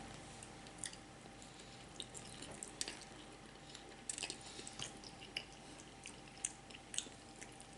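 Quiet eating sounds from a mouthful of spaghetti: soft wet chewing with scattered small mouth clicks and smacks, a few each second.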